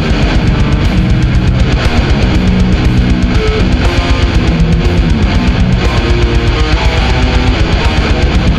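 Death-doom metal: distorted electric guitar chords over a fast, steady drum beat.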